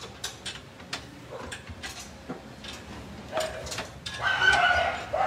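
Light metallic clicks and clinks of hand tools and bolts while a Nissan Sentra's front shock absorber is worked on. About four seconds in, a louder drawn-out animal call begins and runs on.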